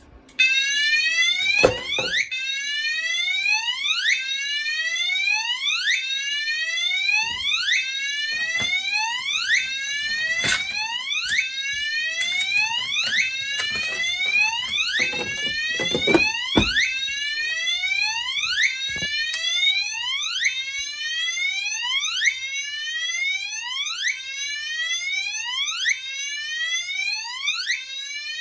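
Fire alarm notification appliances sounding a carbon monoxide alarm signal, set off by pulling an Edwards 278A-REL pull station: a loud repeating rising tone, about one sweep a second, with a few knocks in between.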